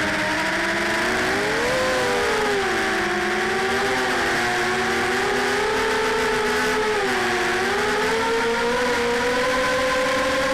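Lumenier QAV250 racing quadcopter's four FXC-1806 2300kv brushless motors with 5030 props, whining as they run. The pitch rises and falls with the throttle: a sharp drop at the start, a rise about two seconds in, another dip near the middle, then a climb that holds steady near the end.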